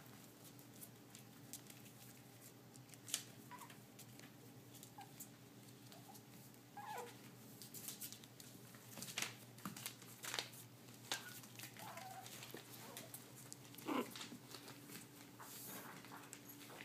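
Young puppy giving a few short, high whimpers, one sliding down steeply in pitch near the end, among scattered light clicks and taps as it moves about the floor. A faint steady hum lies underneath.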